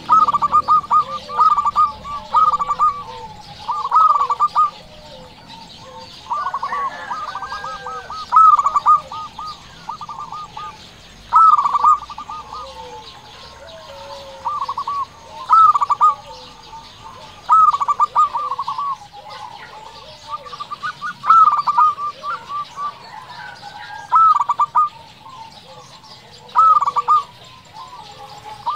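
Zebra dove (perkutut) singing: short phrases of quick rippling coo notes, repeated every second or two, with softer lower coos between them.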